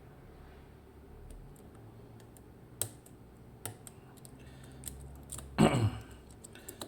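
Small sharp clicks of a dimple-lock pick working the pins of a Mottura C55 cylinder under tension, a few scattered clicks, then a louder short clatter about five and a half seconds in.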